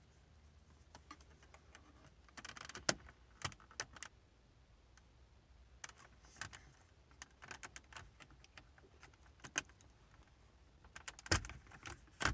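Plastic pry tool working under the edge of an Audi A5's climate control panel: scattered small clicks and scrapes of hard plastic, with louder snaps near the end as the panel's retaining clips let go.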